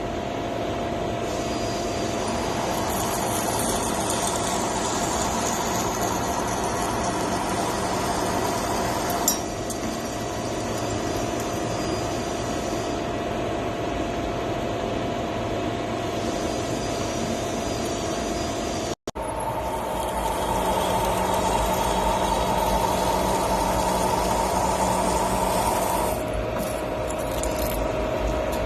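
CNC machine running while tapping threads: a steady mechanical hum with a few held whining tones, a short click about nine seconds in, and an abrupt cut about nineteen seconds in, after which the whine changes pitch slightly.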